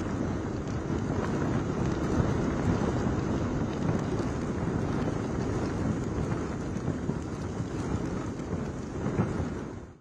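Gusty cyclone wind buffeting the microphone, mixed with rain and choppy water: a steady, heavy, low rushing noise that cuts off suddenly at the very end.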